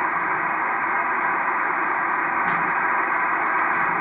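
Drake R-4C tube ham receiver tuned to 14.269 MHz on the 20-metre band, its speaker giving a steady, dull hiss of band noise with no high end and no voice on the frequency.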